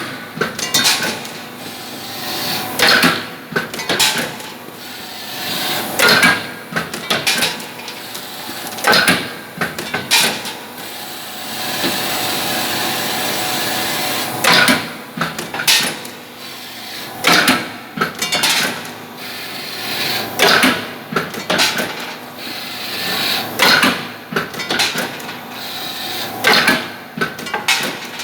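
CNC punch press striking sheet metal: loud, sharp hits every one to three seconds, often in close pairs, with a steady hiss lasting about three seconds midway between strokes.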